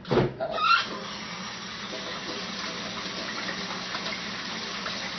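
Kitchen sink tap turned on with a few knocks, then water running steadily from the faucet and splashing over hands being washed.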